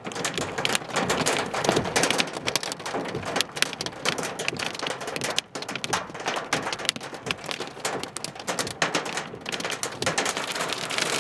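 Hailstones hitting a parked car: a dense, irregular rattle of hard hits that swells and eases.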